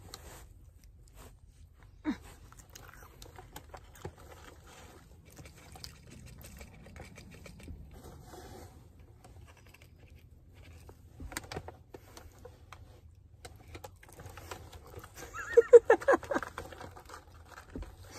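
Quiet handling noises of eating fast food in a car: small clicks and rustles of wrappers and sauce cups and chewing, over a low steady hum. A brief burst of voice comes near the end and is the loudest sound.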